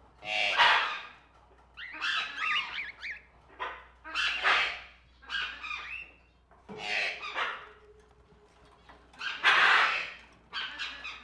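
Tropical cage birds squawking in harsh, repeated calls: about eight loud outbursts with short pauses between them.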